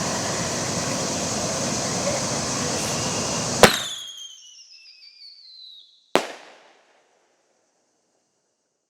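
Consumer whistling artillery shell fired from a mortar tube: a sharp launch bang, then a whistle falling in pitch for about two seconds, then a second sharp bang as the shell bursts. Before the launch there is a steady background noise, and the sound cuts off abruptly shortly after the burst.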